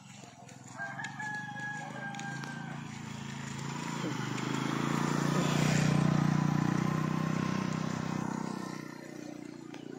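A rooster crows once, a held call of about two seconds starting about a second in. Then a louder, low, steady sound swells up and dies away over several seconds.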